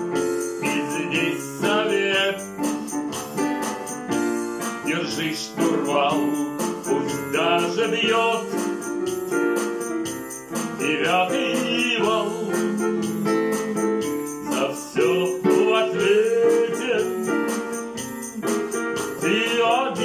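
A man singing a slow song with vibrato, accompanied by held chords on a digital piano and a light, steady percussion beat.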